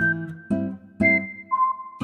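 Background music: acoustic guitar strumming about twice a second under a high, pure melody line.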